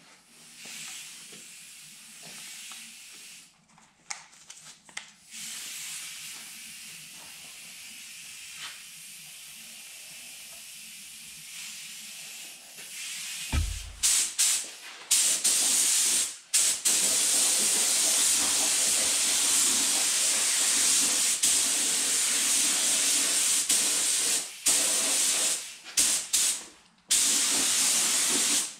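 Gravity-feed paint spray gun hissing as paint is sprayed, a loud steady hiss from about halfway that stops briefly several times as the trigger is let off and pulled again. Before that a fainter hiss, with a low thump just before the loud spraying starts.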